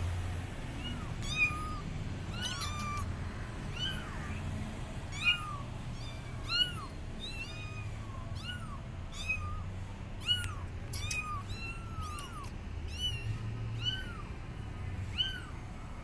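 Several young kittens meowing loudly and repeatedly, short high calls that rise and fall in pitch, one or two a second and sometimes overlapping. They are crying for their mother cat.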